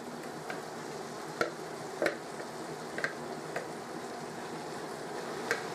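Minced lamb frying in a pan, a steady sizzle with a few sharp pops scattered through it, as grated vegetables are tipped in from a glass bowl.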